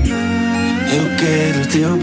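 Kizomba music: the drum beat and deep bass drop out right at the start, leaving held chords with a sliding melody line over them.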